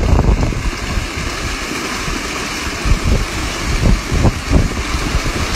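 Water churning and splashing in a steady rush, with wind buffeting the microphone in low thumps.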